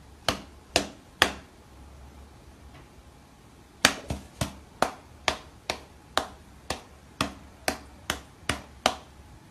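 Sharp light slaps of a cat's paws batting against a person's hand: three quick ones, then a pause, then a steady run of about two a second from about four seconds in.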